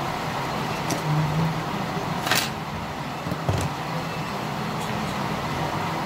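Steady background road-traffic rumble, with a few faint clicks and one brief hiss a little over two seconds in.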